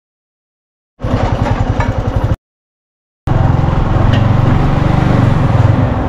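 Silence for about a second, then a motorbike engine running close to the microphone, which cuts off abruptly for almost a second and then carries on.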